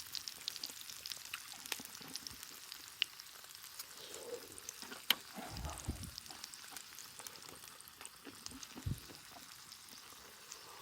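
Pork cooking over a wood campfire: fat sizzling with scattered small crackles. A couple of soft low thumps come through near the middle and toward the end.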